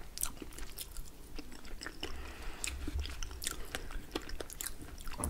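Two people chewing berry cheesecake close to the microphone, with irregular soft wet mouth clicks.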